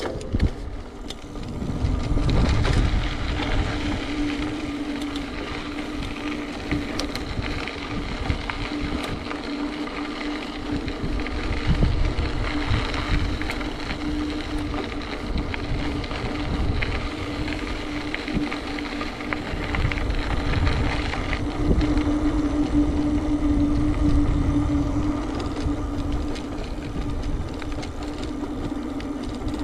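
Wind rushing over the microphone during a bicycle ride, in gusts that rise and fall, with a steady hum underneath.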